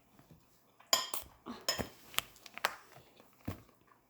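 Eating utensils clinking and tapping against a dish while food is eaten: a scattered run of sharp clicks, most of them from about one to three seconds in, with one more near the end.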